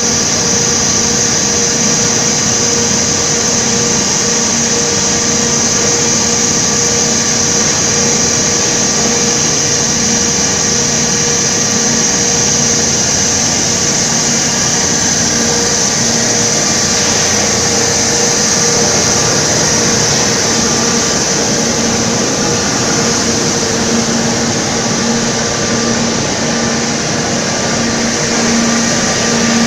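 Coal grinder mills and their electric motors running at full speed in a pulverized-coal firing plant, making a loud, steady machine noise: a constant hum with a high hiss over it.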